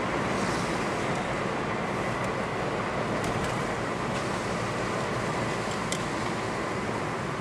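Steady road noise from inside a moving car: engine and tyres running on a wet road, with a few faint ticks.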